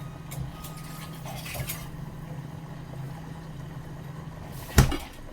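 A steady low hum with a few light clicks, and one loud sharp knock near the end.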